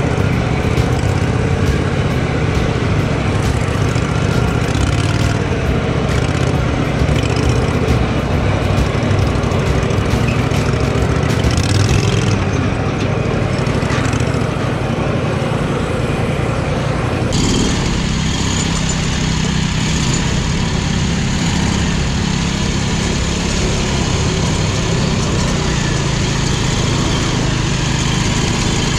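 Small engines of modified off-road riding lawn mowers running steadily, with the sound changing abruptly about two-thirds of the way through.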